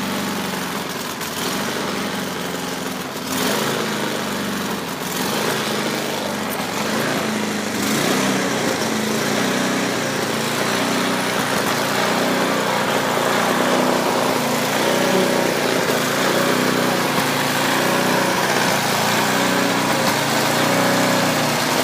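Small petrol engine running steadily, its pitch rising and falling again and again as it labours.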